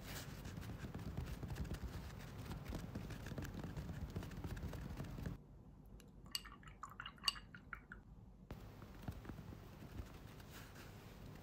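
A paintbrush scratching and rubbing in a white plastic paint palette. After an abrupt cut, a thin metal brush clinks and rings several times against a glass of water as it is rinsed, and then the scratching on the palette resumes.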